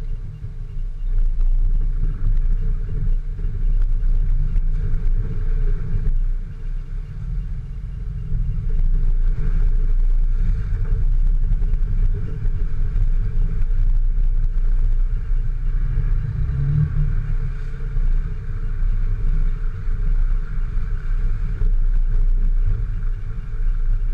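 Off-road 4x4 vehicle engine running steadily, a continuous low rumble.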